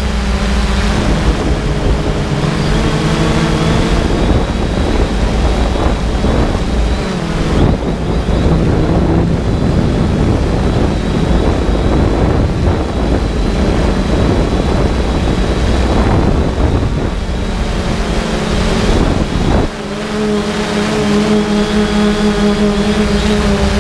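3DR Solo quadcopter's motors and propellers humming in flight, with strong wind gusts buffeting the microphone. The gusts are heaviest through the middle and partly drown the hum, which stands out clearly again after a short dip in level near the end.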